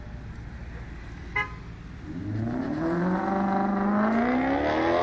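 Maserati GranTurismo's V8 through a Tubi exhaust accelerating away, the exhaust note growing loud and rising in pitch from about two seconds in. A short horn beep sounds about a second and a half in.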